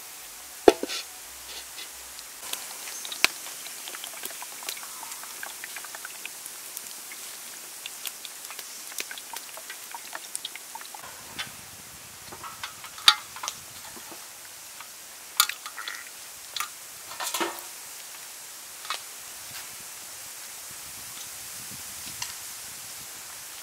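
A few sharp crackles and snaps from a wood fire over a steady hiss. Then, from about eleven seconds in, scattered clicks and taps of bamboo skewers of wet, marinated snake meat being handled on a steel tray.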